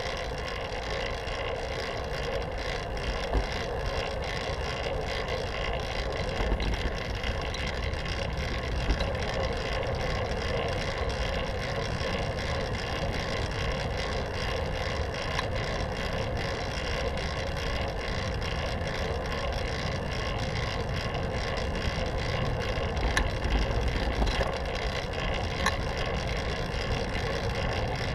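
Fixed-gear bicycle rolling along a paved path, heard through a handlebar-mounted GoPro: a steady hum of tyres on asphalt and the turning drivetrain, with a few light knocks.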